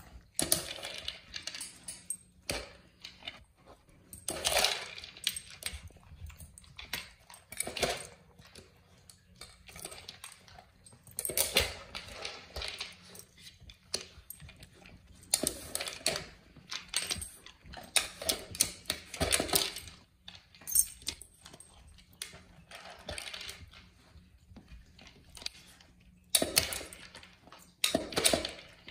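Dog working dry kibble out of a puzzle feeder bowl: irregular bursts of kibble rattling and the bowl clattering as it noses and paws at it.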